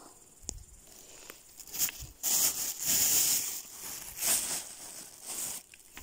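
Rustling and tearing of moss as a gloved hand pulls a mat of it from the forest floor and handles it. The sound comes as several noisy bursts, starting about two seconds in.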